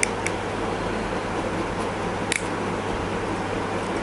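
BSNR TX140 spring-loaded cutter snipping the thin metal shield on a phone circuit board: sharp clicks, two in quick succession at the start and the loudest about two seconds in, over a steady fan-like hum.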